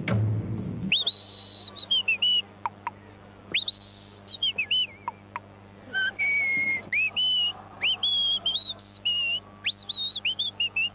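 A man whistling loudly through his fingers: high notes that swoop up at the start, some held for about a second, then quicker short notes and trills. Music underneath stops about a second in.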